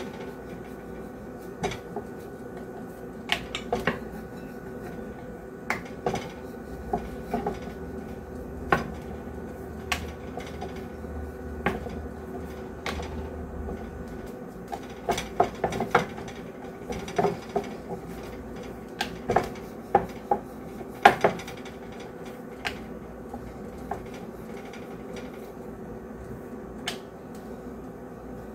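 Wooden rolling pin rolling out puri dough on a board, with scattered light knocks and clacks as the pin is rolled, set down and picked up, over a faint steady hum.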